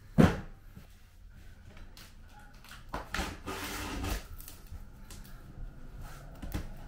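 A large cardboard shipping box being handled: a sharp thump about a quarter second in, then cardboard scraping and rustling for about a second from three seconds in, as the box's top flaps are worked open.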